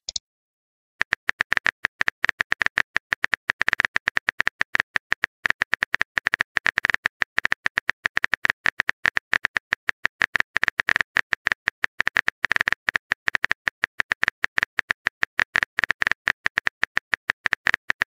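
Rapid simulated phone-keyboard typing clicks from a text-messaging app's sound effect, about ten clicks a second, starting after a second of silence.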